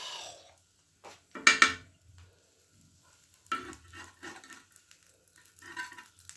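Cooking in a frying pan on a stove: a utensil knocks and scrapes against the pan a few times, with food sizzling faintly.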